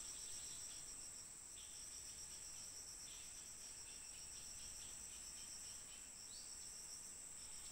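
Steady, high-pitched trilling chorus of forest insects, with fainter quick chirps in the middle.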